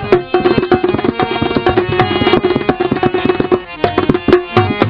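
Instrumental interlude of a Punjabi folk song: a harmonium holds and moves between sustained reed notes while a hand drum plays fast, dense strokes.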